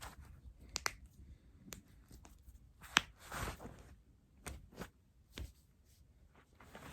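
Joints popping during manual cracking: several sharp, separate pops scattered through, the loudest about three seconds in, with brief soft rustling between them.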